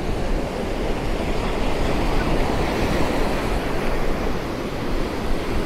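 Surf breaking and washing on a sandy beach, a steady rush, with wind buffeting the microphone.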